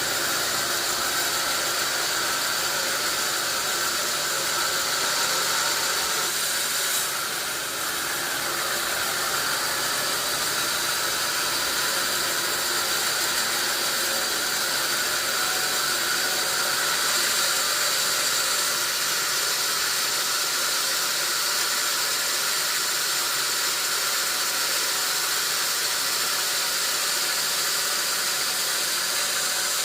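Sawmill saw running steadily as it cuts through a log of wadang wood, a continuous hissing whine with a slight dip about a quarter of the way through.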